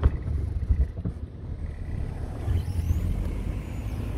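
Street ambience: a steady low rumble of traffic and wind on the microphone, with a sharp knock right at the start and a few smaller knocks about a second in.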